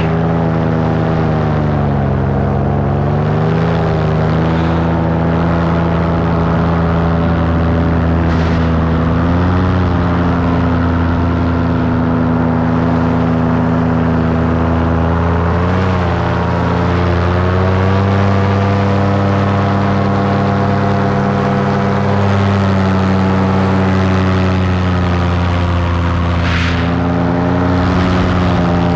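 Paramotor's two-stroke engine and propeller running steadily in flight, the engine note dipping about two seconds in and rising and falling a few more times as the throttle changes, with wind rushing past the microphone.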